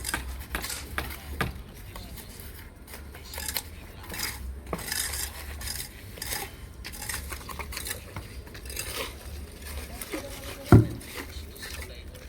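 Repeated clinking and scraping of metal on hard surfaces, with one heavy thud near the end, over a steady low hum.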